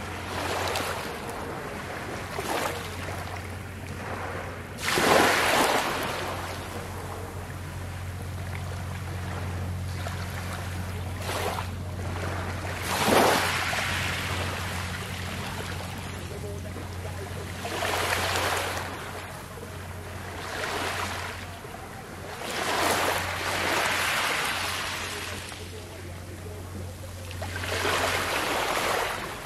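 Small ocean waves lapping and washing over a shore of coral rubble and pebbles, one soft wash every few seconds, the loudest about five and thirteen seconds in. A steady low hum lies beneath the waves and drops away near the end.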